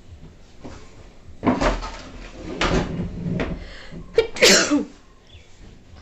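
A woman's sneeze fit, set off by tickling inside her nostril with a rolled paper: several short sharp bursts of breath and nose sound, the loudest and sharpest a full sneeze about four and a half seconds in.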